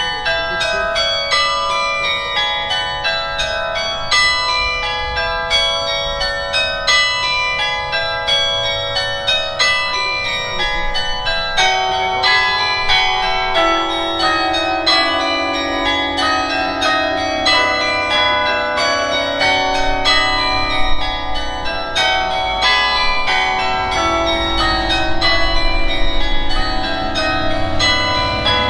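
Carillon bells playing music: a quick melody of struck bell notes over long-ringing chords, with deeper bells joining in about twelve seconds in.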